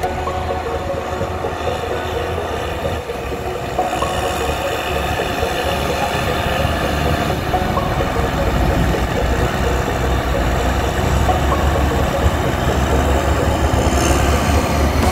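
Heavy diesel engines of a tractor and a 4x4 pickup running while they move a boat trailer through soft sand, growing gradually louder.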